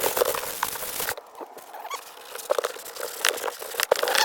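Hand-handling noises: rustling and scraping with scattered small clicks, as a cloth and cleaner are handled over the plastic panel. A steady hiss cuts off about a second in.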